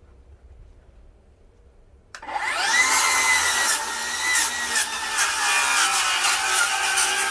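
A cordless Milwaukee rear-handle circular saw with a 24-tooth carbide framing blade starts about two seconds in, its whine rising as the blade spins up, then cuts into treated 2x lumber that is studded with screws and framing nails. The pitch wavers and sags under load, and sharp cracks break through as the teeth strike the fasteners.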